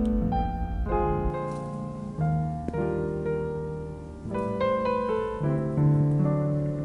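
Background piano music, held notes and chords changing every second or so.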